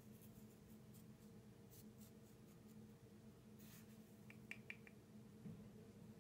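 Near silence: faint steady room hum, with a few faint light ticks, a brief soft scrape about three and a half seconds in, and a quick run of four small clicks just after it.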